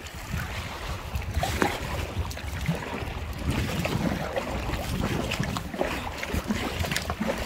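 Wind rumbling on the microphone over water sloshing against an inflatable kayak, with scattered small knocks.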